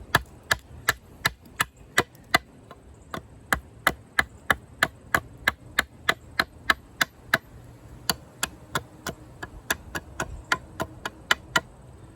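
Condor Heavy Duty Kukri's thick high-carbon steel blade chopping into a thick branch in quick, light strokes, about three sharp strikes a second with two brief pauses, shaping the end into a stake point.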